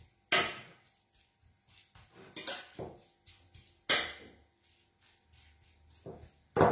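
Metal fork clinking against a ceramic bowl while working raw minced beef tartare: a handful of sharp clinks a second or more apart, with softer taps between, the loudest near the end.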